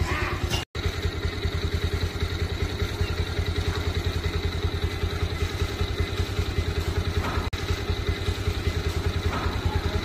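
A small engine idling steadily with a fast, even pulse. The sound cuts out for an instant near the start.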